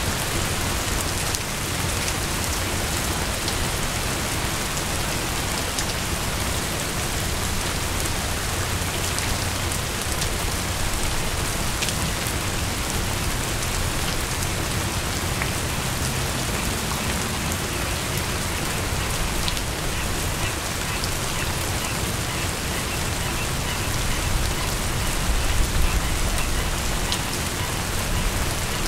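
Steady rain falling, an even hiss dotted with sharper ticks of single drops. A low rumble swells in near the end.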